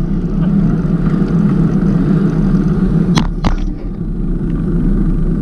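Steady low rumble of riding noise, wind and road, on a bicycle-mounted camera, with two sharp clicks a little past the three-second mark.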